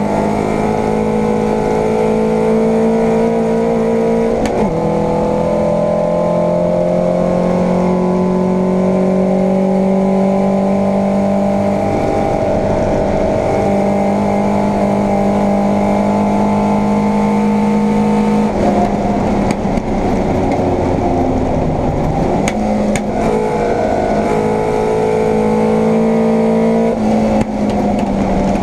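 Vauxhall Firenza race car's engine heard from inside the cockpit under hard acceleration, its pitch climbing steadily in each gear. There are short breaks for gear changes or lifts about 4 and 12 seconds in, and a few seconds off the throttle around two-thirds of the way through before it pulls again.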